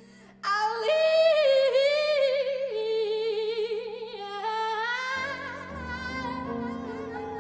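Soprano singing a high, loud line with wide vibrato in contemporary chamber music. The line starts suddenly out of a soft passage about half a second in. Low held notes from the ensemble join about five seconds in.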